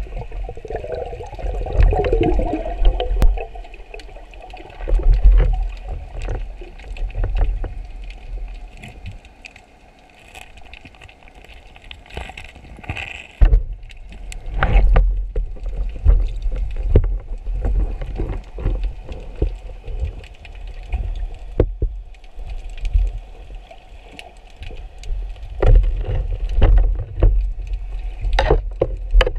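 Underwater sound picked up through an action camera's waterproof housing on a speargun during a breath-hold dive: a heavy low rumble of water moving past the housing, with many short knocks and clicks from the diver's movements and gear.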